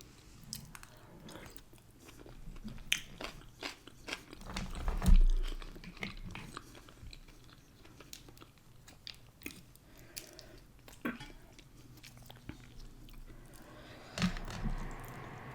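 Close-up eating sounds: chewing and biting with scattered small wet mouth clicks. About five seconds in there is one louder low thump.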